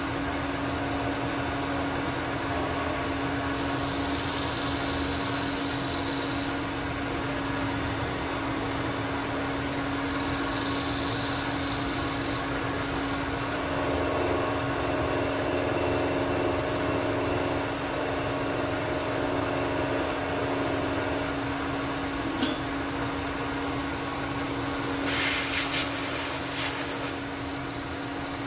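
Bridgeport milling machine running on its variable-frequency-drive motor, its end mill cutting a block as the table is fed around a hole: a steady motor hum with a constant tone. About three quarters of the way through there is one sharp click, and near the end a loud hiss of about two seconds.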